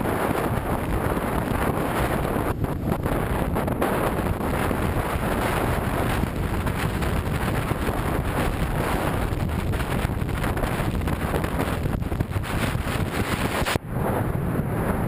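Heavy wind buffeting the microphone of a camera mounted outside a Jeep Wrangler JK as it drives fast over a desert sand track, with the vehicle's running and tyre noise underneath. The noise is steady and drops out briefly about 14 seconds in.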